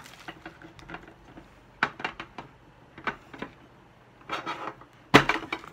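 Shrink-wrapped metal trading-card tin being handled: scattered light taps and clicks of the tin and its plastic wrap, with a sharper knock just before the end.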